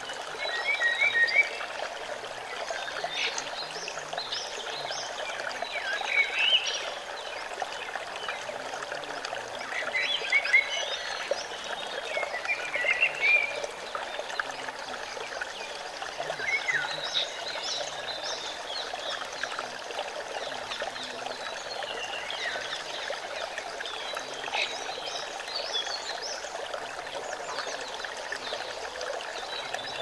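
Shallow forest stream running over rocks, a steady rush of flowing water. Short high chirping calls come and go above it, loudest about a second in and again around the middle.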